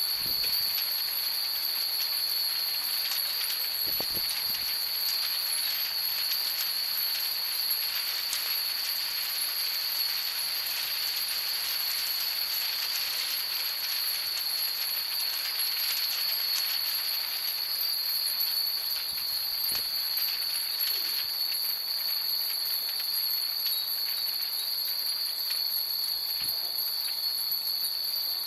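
Hundreds of Japanese furin wind chimes tinkling irregularly in the breeze, with thicker clusters of strikes in the middle stretch, over a steady high-pitched whine.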